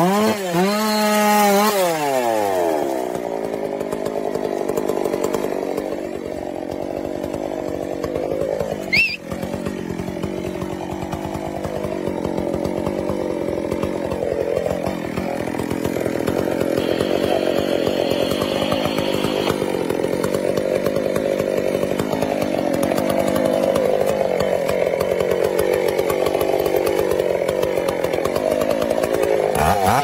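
Chainsaw revving up and then cutting steadily into the base of a large tree trunk, its engine pitch sagging now and then under load. A brief sharp noise sounds about nine seconds in.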